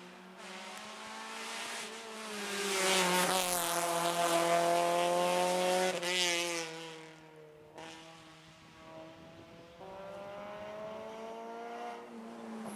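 Rally car engines revving hard on a tarmac stage, the pitch climbing and then breaking off at each gear change, loudest a few seconds in, with another run building near the end.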